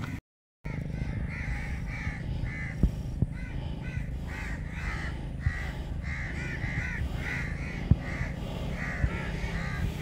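A flock of birds calling over and over in short, harsh, caw-like calls, one after another, over a steady low background rumble. The sound cuts out completely for about half a second near the start.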